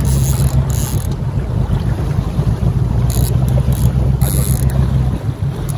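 Boat engine running with a steady low hum, under wind buffeting the microphone; the hum drops away slightly about five seconds in.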